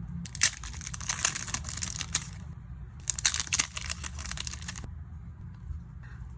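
Packaging crinkling and rustling as it is handled and opened, in two stretches of about two seconds each with small clicks.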